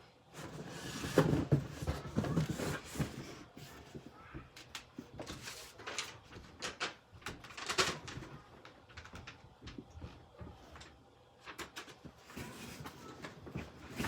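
Irregular knocks, clunks and rustling of things being handled and moved about, with thuds like a door or cupboard being worked.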